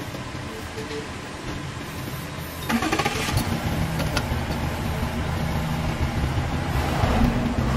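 Injection moulding machine running with a steady low mechanical hum that steps up in level about a third of the way in. A few sharp metal clicks come a little later, as clamp plates and bolts are fitted to the mould.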